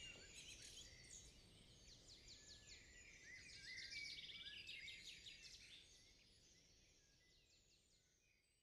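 Faint songbirds chirping and trilling over a low hum of outdoor background noise, fading out to silence a couple of seconds before the end.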